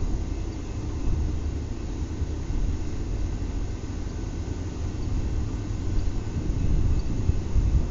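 Diesel freight locomotive rumbling low and steady as it rolls slowly toward the listener, with no horn sounding.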